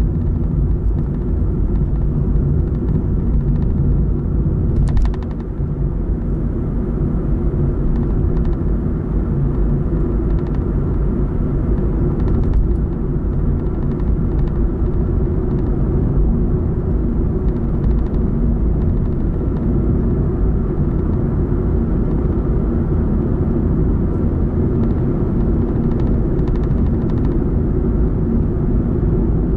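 Steady low rumble of a car's tyres and engine heard from inside the cabin while driving at road speed.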